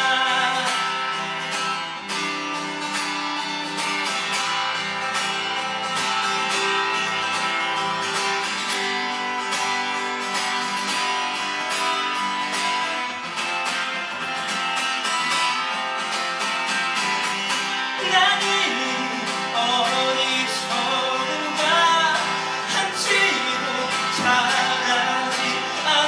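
A man singing to his own strummed acoustic guitar. The guitar plays alone through the middle of the passage, and the singing comes back about two-thirds of the way through.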